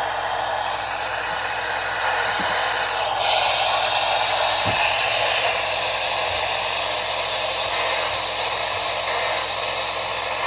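Steady static hiss from a radio receiver, thin and band-limited like a small speaker, shifting slightly in tone about three seconds in.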